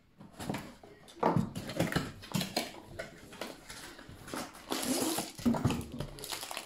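Cardboard box being opened and a plastic-wrapped rolled canvas slid out of it. The cardboard and plastic film give irregular rustling and crinkling, densest about five seconds in.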